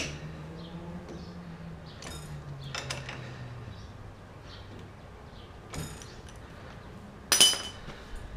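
Hand tools and small steel parts clinking against a race car's steel front spindle, a few separate clinks, the last and loudest one ringing briefly. A low hum runs under the first half.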